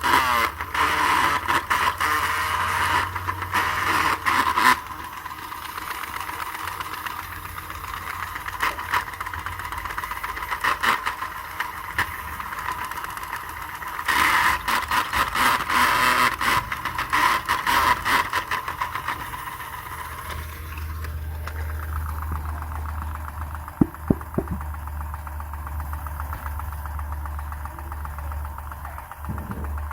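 A small motor running with a rattle, louder in stretches near the start and again about halfway through; a steady low hum sets in about two-thirds of the way in.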